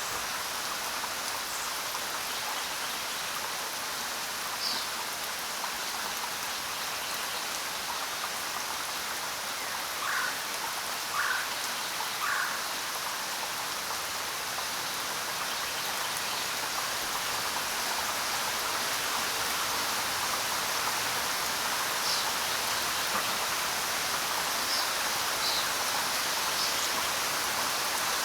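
Steady rain falling on the ground, an even hiss. A few short, sharper sounds stand out above it, three of them about a second apart near the middle.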